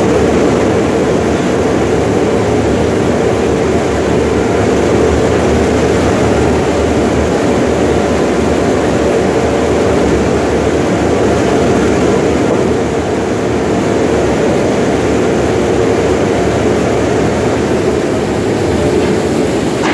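Tunnel car wash equipment running: a loud, steady din of water spraying and cloth wash brushes turning, with a steady hum underneath.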